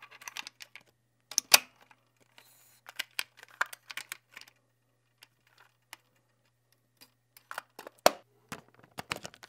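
Clicks and small mechanical noises of a vintage film camera being handled while film is loaded into its open back, with sharp clicks about a second and a half in and again about eight seconds in.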